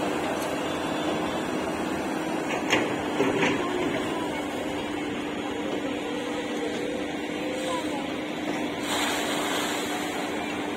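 SANY long-reach excavator's diesel engine running with a steady hum, with a few sharp knocks about three seconds in. Near the end comes a hiss of water pouring from the raised bucket.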